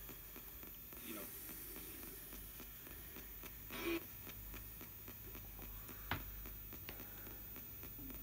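Spirit box radio sweeping down the AM band in reverse: a steady low hiss of static and hum with faint rapid ticking as it steps from station to station. A brief louder blip of broadcast sound comes about four seconds in, and a sharp click about six seconds in.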